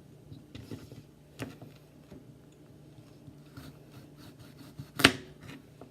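Kitchen knife cutting baby carrots on a cutting board: two sharp knocks of the blade meeting the board, about a second and a half in and near the end, the second the louder, with a few fainter clicks between.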